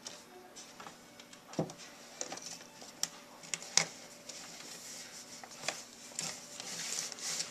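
A ferret scrambling through a pile of plastic bags, boxes and toys: scattered light clicks, taps and crinkles, with the rustling growing thicker near the end.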